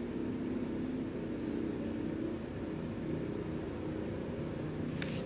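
Steady low hum and hiss of background noise with no speech, and a single sharp click near the end.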